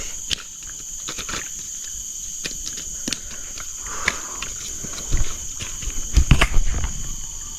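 Steady high-pitched drone of insects in the rainforest, with scattered light clicks and a cluster of dull thumps about six seconds in.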